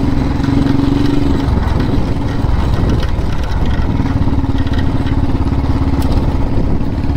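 Royal Enfield motorcycle engine running at low speed while riding, the throttle easing off for a couple of seconds and then holding steady from about four seconds in.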